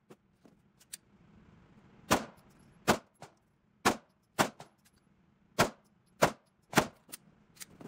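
Pistol firing a string of about seven shots at an indoor shooting range, one every half second to a second, each a sharp crack. A few fainter cracks fall between them.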